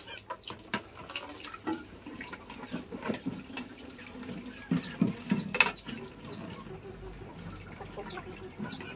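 Water splashing and pouring, with knocks and clatter from a steamer pot as its old water is changed for fresh. Small birds chirp over and over in the background.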